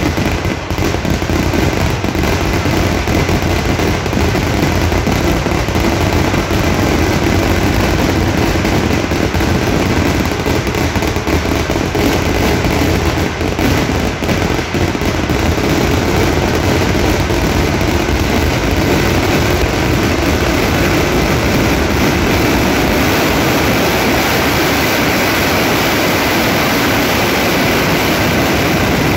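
Kerala temple-festival fireworks (vedikettu): a continuous, dense barrage of firecracker explosions, the blasts packed so tightly they merge into one loud, unbroken din without a pause.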